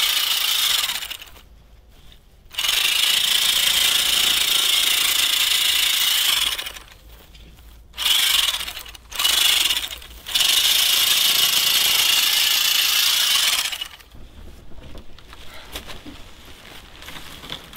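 Portable electric bag-closing sewing machine stitching shut the mouth of a woven polypropylene sack of charcoal. It runs with a steady high whir, in several long bursts with two short ones in the middle. After it stops, for the last few seconds, there are only fainter irregular clicks and rustles.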